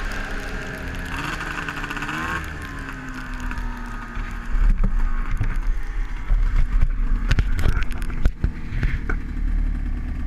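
Ski-Doo MX Z X 440 two-stroke snowmobile engine coming off the throttle, blipped once about a second in, then settling to idle. From about halfway the loudest sounds are irregular knocks and fumbling of hands handling the helmet camera against the microphone.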